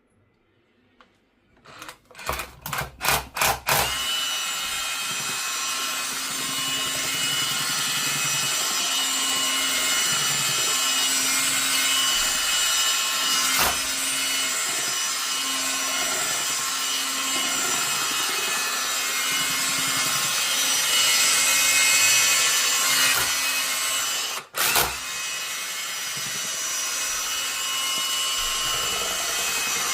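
Mini rotary hammer drill: a few short trigger blips about two seconds in, then running continuously, with one brief stop and restart about 24 seconds in.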